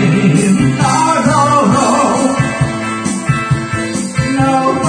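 Karaoke: one voice singing in English into a microphone over a pop-rock backing track with a steady beat.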